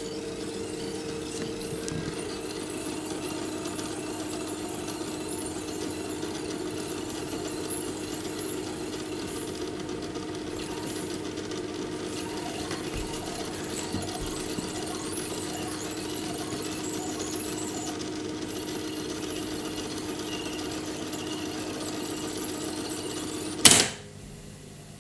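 Cassette deck of a Sharp GF-9494 boombox fast-winding the tape during an APLD track search: a steady motor-and-reel whir. Near the end a single loud clunk as the transport stops at the next track.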